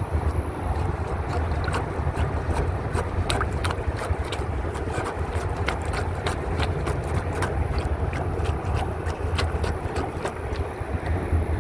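Wind buffeting the microphone, over a quick irregular run of sharp wet clicks and splashes from a plunger working the standing water in a clogged drinking-fountain drain. The clicks stop about two seconds before the end.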